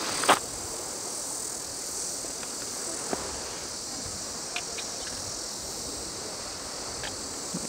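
Steady high-pitched buzzing of insects, with a footstep crunching on loose gravel just at the start.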